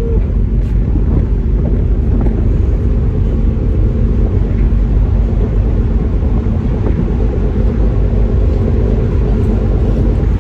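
Steady low drone of a ferry under way, heard from the open upper deck, with wind rumbling on the microphone. A horn note dies away right at the start.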